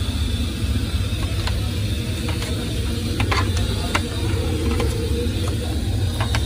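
Steel scraper chopping chicken nuggets on a metal stall counter: scattered sharp taps and clicks at an uneven pace, over a steady low rumble in the background.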